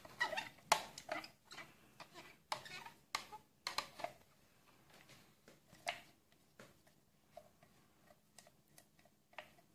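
A plastic spatula scraping and tapping against the inside of a plastic blender jar as the last of a blended soup is scraped out into a bowl. A quick run of short scrapes and knocks gives way after about four seconds to fainter, sparser ticks.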